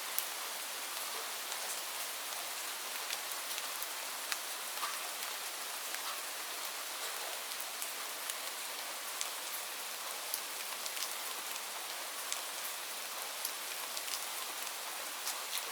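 Steady rain falling, an even hiss with many individual drops ticking sharply against a surface, scattered irregularly throughout.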